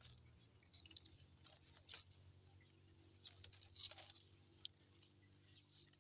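Near silence, with a few faint scattered clicks and rustles of leaves and twigs being handled in a fruit tree.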